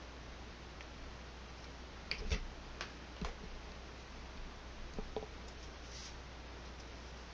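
Several light clicks and taps from paint containers and a brush being handled at the palette while blue and white acrylic paint is refilled and mixed. A cluster of clicks comes about two to three seconds in and a couple more around five seconds, over a steady faint hiss and low hum.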